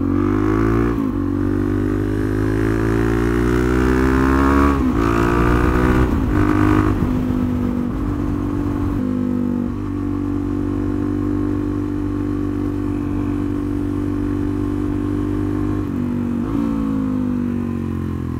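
Motorcycle engine accelerating through the gears: the revs climb and drop back at gear changes about five, seven and ten seconds in. It then holds a steady note at cruising speed and falls as the bike slows near the end.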